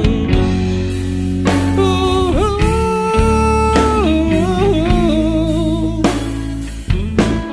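Rock band playing: a male voice holding long, wordless sung notes that slide and waver, over electric guitar, bass guitar and drums.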